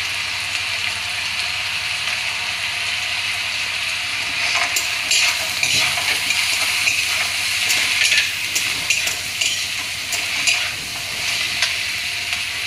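Cut flat beans sizzling in hot oil in a kadhai just after turmeric and chilli powder go in, a steady hiss. From about a third of the way in, a metal spatula scrapes and clicks against the pan as the beans are stirred.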